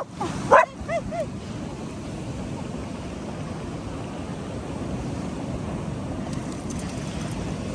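Sea surf washing over a concrete slipway, a steady rushing with wind. In the first second there is a sharp loud cry and a few short high calls, then only the surf.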